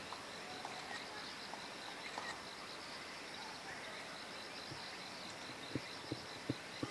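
A steady chorus of insects, a high trill pulsing rapidly throughout. Near the end come a handful of short knocks.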